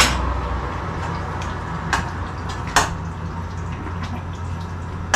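Pasta water boiling in a stainless steel pot as it is stirred with a metal spoon, the spoon knocking against the pot a few times, over a steady low hum.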